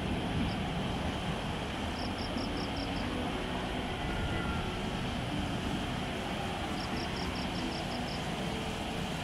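Steady distant rumble of an Airbus A350-900's Rolls-Royce Trent XWB engines on final approach. Two runs of rapid high chirps, about five a second, come in about two seconds in and again about seven seconds in.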